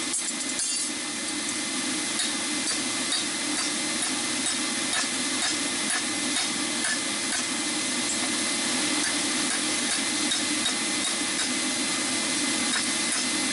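Hand hammer striking a piece of salvaged steel on an anvil to straighten it, with light knocks at an irregular pace over a steady rushing noise.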